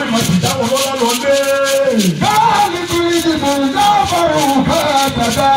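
A man singing, with long held notes that slide up and down, over a shaker keeping a steady rhythm.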